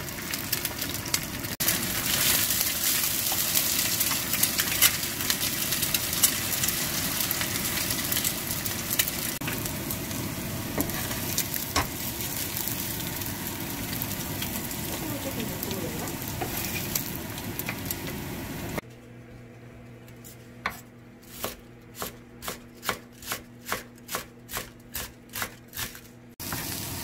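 Eggs frying in oil in a pan with a steady sizzle and small pops. A little after two-thirds of the way through the sizzle stops and a knife chops green onions on a wooden cutting board, about two chops a second, before frying noise returns at the very end.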